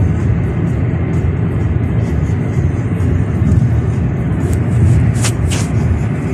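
Steady low rumble of road and engine noise inside a moving car's cabin, with a few brief scratchy sounds a little after five seconds in.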